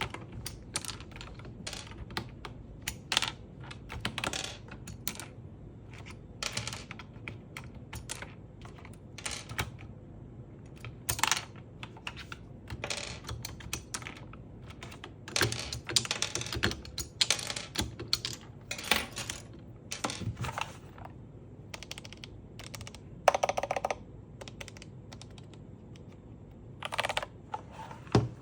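Typing on a Machenike KT68 mechanical keyboard: irregular keystroke clicks, with a quick flurry of keys about halfway through.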